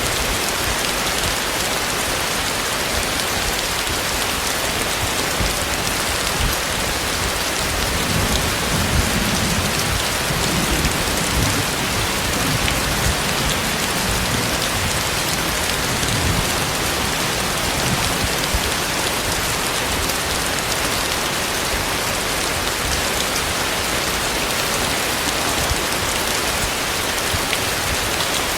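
Heavy tropical rain pouring steadily, a dense hiss of drops on surfaces. A low rumble of thunder swells under it for several seconds about a third of the way in.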